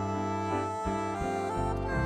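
Background music: a melody of held instrumental notes over a stepping bass line.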